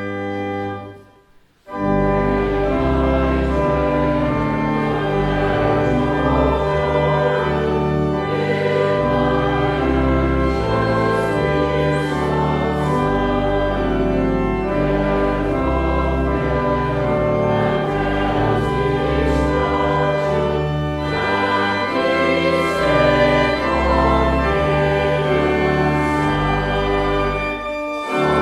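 Church music of organ and choir. It breaks off briefly about a second in, then resumes with sustained organ chords over a steady bass line.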